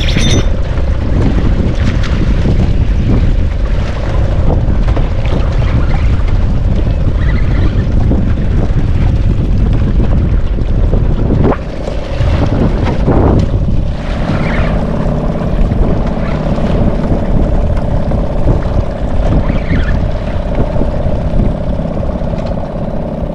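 Wind rushing over the microphone on open water, with a steady hum underneath that grows stronger about halfway through.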